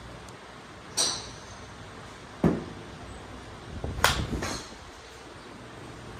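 Golf clubs striking balls at a driving range: a sharp crack about a second in, a duller thump at about two and a half seconds, and the loudest, an iron hitting the ball at about four seconds, with a short rattle after it.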